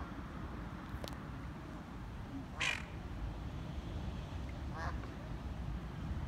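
Eurasian coot giving a few short, sharp calls, the loudest near the middle, over a steady low rumble.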